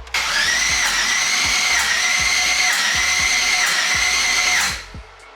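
Starter motor cranking a 5.3 LS V8 with a steady whine for about four and a half seconds, then stopping near the end. The engine never fires because the freshly installed cam's timing is off by a good amount.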